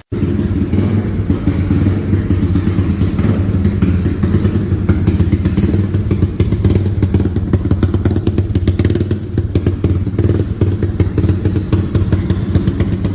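Modified Yamaha Y15's single-cylinder four-stroke engine running steadily at an even, idle-like speed, with a fast dry clatter laid over the exhaust note, the kind of rattle an aftermarket Comstar dry clutch makes. The engine speed stays level, with no revving.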